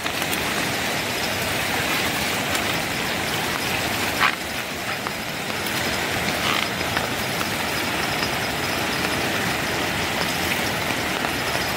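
Steady rushing of a swollen, muddy river in flood, with one brief click about four seconds in.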